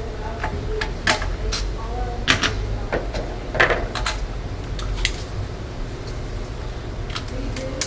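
Scattered light clicks and knocks of small laptop parts and tools being handled while a motherboard is stripped down on a workbench, over a steady low hum.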